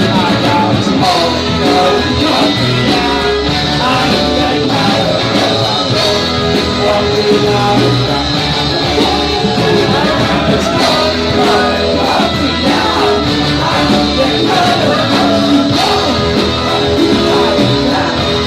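Live rock band playing loudly, with electric guitar and singing.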